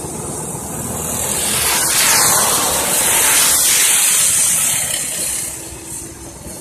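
Racing go-karts' small engines passing close by. The noise swells about two seconds in, stays loud for a few seconds and fades near the end.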